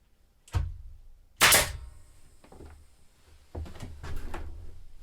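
A few sharp knocks and bumps of building work in a small room: one knock about half a second in, a louder sharp bang with a brief ring about a second and a half in, and a cluster of smaller knocks near the end.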